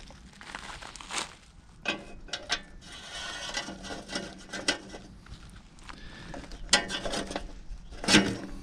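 Handling noises as perch are laid in layers into a metal hot-smoker box: a few scattered clicks and knocks, with rustling in between.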